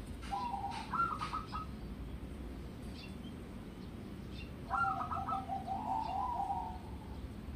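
Local wild-type perkutut (zebra dove) cooing in its cage. It gives two phrases of quick staccato notes: a short one about half a second in and a longer, trilling one that starts about five seconds in.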